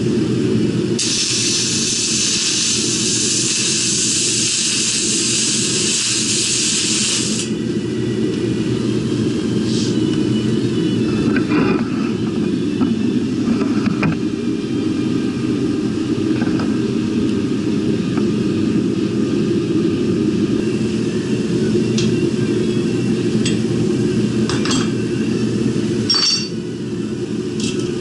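Metal-fabrication work in a shop: a steady low machine rumble throughout, a loud even hiss of about six seconds that starts and stops sharply near the start, then scattered light metal clinks.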